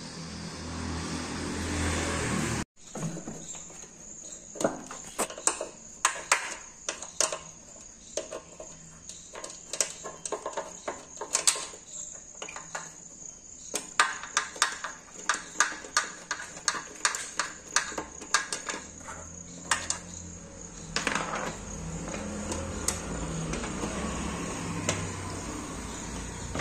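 Irregular sharp clicks and light knocks of small metal parts and tools being handled while the fuel pump on a Bajaj Pulsar 150 BS6 fuel tank is unbolted. A steady high tone runs underneath.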